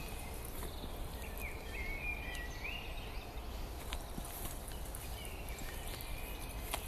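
Footsteps crunching steadily on a gravel path, with a bird singing a few short chirping phrases in the background, about a second and a half in.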